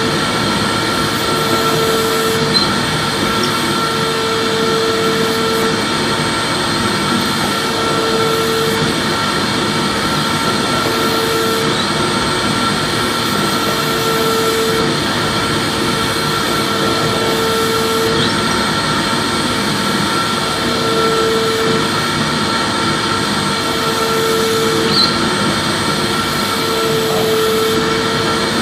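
Vacuum cleaner motor running steadily: a loud even rush of air with a steady whine, and a lower hum that swells in and out for about a second every two to three seconds.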